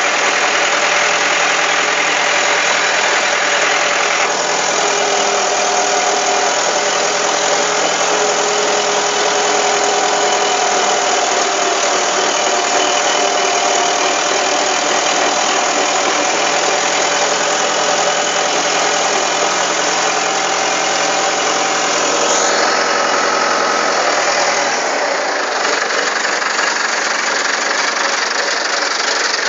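Komatsu D30A bulldozer's diesel engine running loud and steady. Its sound shifts about four seconds in, and again near the end when the low hum drops away.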